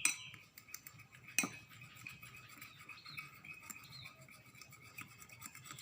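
Fork stirring powdered detergent and water in a container: faint, irregular clicking and scraping of the fork against the container, with one sharper click about a second and a half in.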